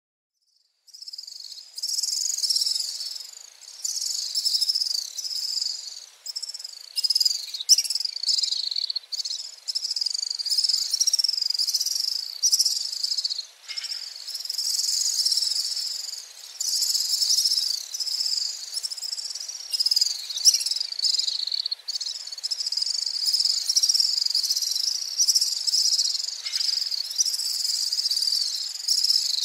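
House swifts (Apus nipalensis) giving high-pitched trilling, twittering calls, one trill after another with short gaps, starting about a second in.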